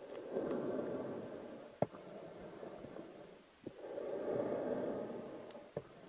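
A scuba diver exhaling through the regulator: two bursts of bubbles about three and a half seconds apart, each swelling and fading over about a second and a half, with a few sharp clicks in between.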